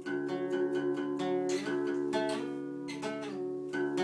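Guitar strumming chords in a song's instrumental intro, before the singing comes in.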